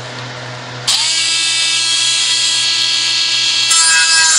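A handheld power tool spins up a cutter about a second in and runs with a loud, high, steady whine as it cuts a hole into the steel exhaust ahead of the catalytic converter for an O2 sensor bung. It gets louder a little before the end.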